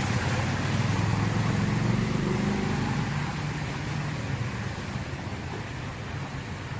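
A motor vehicle's engine running close by: a low steady drone that fades over the last few seconds, with a steady hiss underneath.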